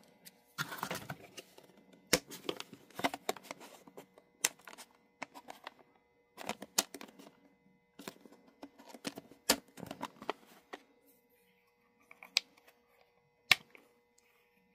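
Irregular plastic clicks and rattles as a precision screwdriver bit case is handled and opened and small steel bits are picked through and pulled from their slots, with a faint steady hum underneath.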